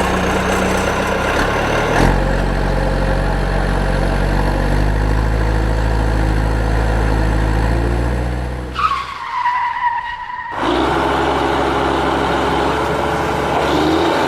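A vehicle engine running steadily under load. About nine seconds in the engine sound drops away and a squeal, falling slightly in pitch, sounds for under two seconds before the engine returns.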